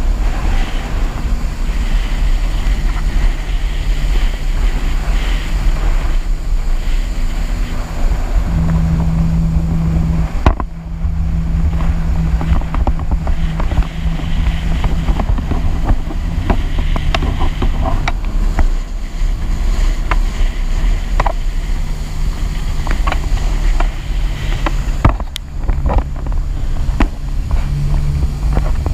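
Jet ski engine running at speed under a haze of wind noise on the microphone, its pitch stepping up and down with the throttle. It eases off briefly about ten seconds in and again about twenty-five seconds in, with scattered short knocks throughout.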